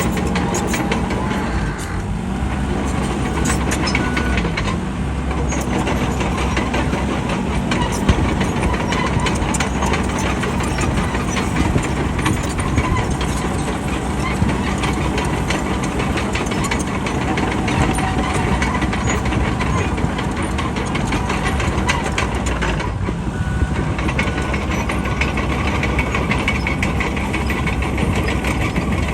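Bulldozer's diesel engine running steadily under work, with a dense stream of short clicks and knocks throughout.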